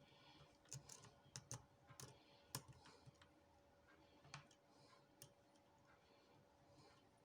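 Faint, irregular metallic clicks of a lock pick working the pin stack of a Union 5-pin rim cylinder, most of them in the first three seconds, the sharpest about two and a half seconds in.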